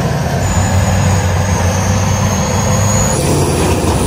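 Engine of a big lifted pickup on oversized tyres running steadily under load while it tows a small pickup on a strap. A thin high whine rides over it and stops about three seconds in.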